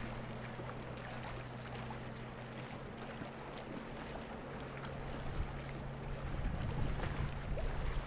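Low, steady drone of ships' engines from the tug and frigate moving through the harbour, over wind and water noise. The hum shifts slightly up in pitch about halfway through, and the low rumble grows louder near the end.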